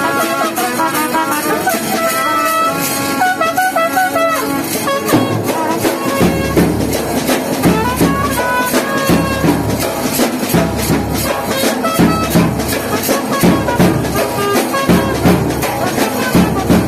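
Loud dance music: a melody over fast, steady drumming, with a heavy low beat coming in about six seconds in.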